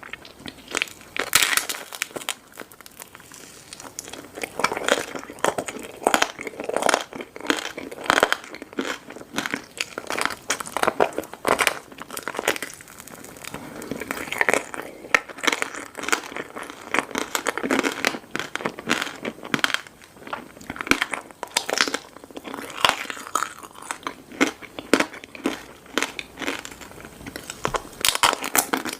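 Crunchy candy being crunched close to the microphone: dense, irregular crisp cracks and crackles with loud crunches every second or so.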